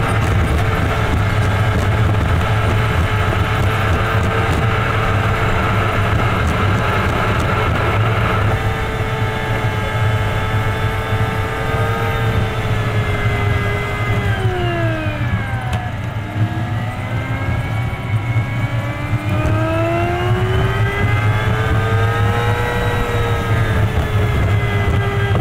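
Vehicle engine and road noise on a fast-forwarded expressway drive: a steady low hum under a high whine. About halfway through the whine falls as the vehicle slows, then climbs again over the next several seconds as it speeds back up.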